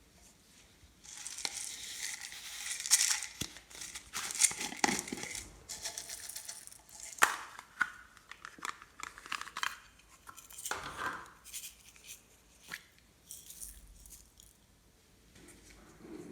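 Hands working glossy slime, with sticky crackling, tearing sounds and sharp little pops and clicks that come and go.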